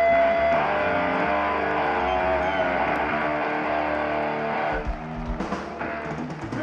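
Distorted electric guitar on a loud live stage, sustained droning and wavering feedback tones, with low drum thumps joining about five seconds in.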